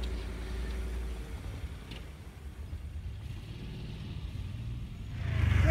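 Chevrolet SUV driving away over a dirt track: a low engine rumble with tyre noise that fades as it pulls off, and a louder low rumble rising again near the end.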